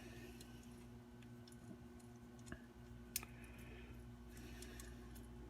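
A few faint clicks and taps of small metal carburetor parts and tools being handled during disassembly, over a low steady hum; the sharpest click comes about three seconds in.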